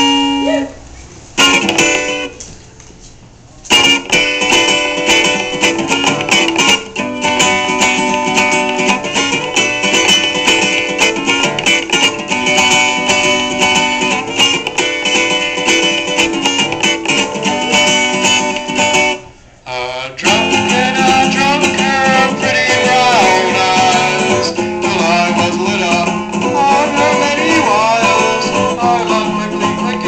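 Acoustic-electric guitar strummed in chords. There is a short break about three seconds in and another about two-thirds of the way through, after which the playing resumes with a fuller low end.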